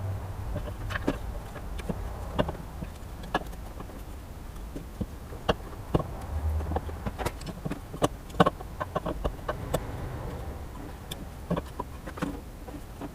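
Irregular clicks and light knocks of parts and hand tools being handled during stator installation work, over a low steady hum.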